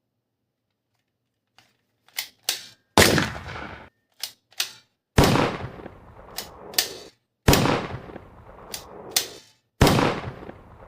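Toy gun gunshot sound effects, repeated four times: each time two quick clicks like a gun being cocked, then a loud shot that echoes away over about a second.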